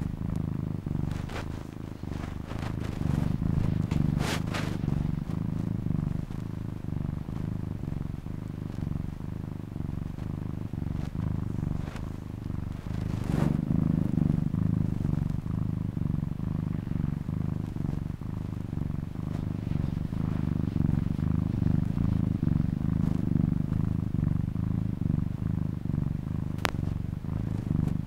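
Domestic cat purring steadily, the purr rising and falling in slow waves, with a few brief clicks along the way.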